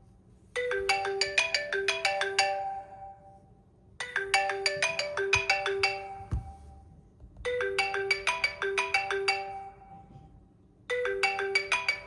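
iPhone ringtone playing for an incoming FaceTime call: a quick run of short, clear notes that repeats about every three and a half seconds, four times in all.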